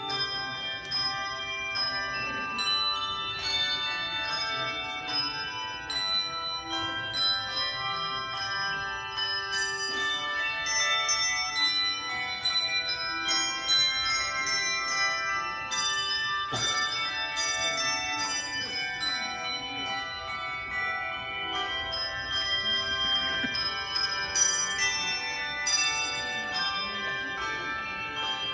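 Bells rung in quick succession, with many notes overlapping and ringing on.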